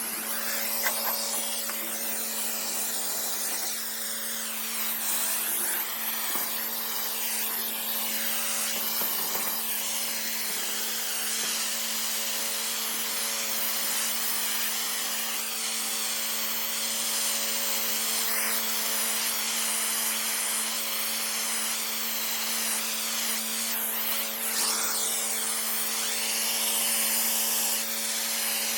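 A pressure washer running steadily, its motor and pump humming under a constant hiss of high-pressure water spraying a concrete driveway.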